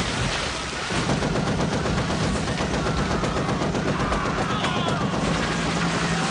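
Sustained rapid machine-gun fire from a helicopter gunship strafing the ground, over a steady low drone.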